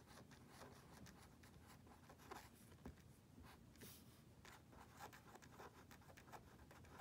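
Pen writing cursive on paper: faint scratching in many short strokes as letters are joined into words.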